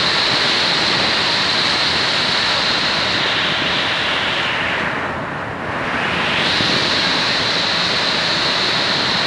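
Heavy rain pouring steadily on a road and roof, briefly duller about five seconds in.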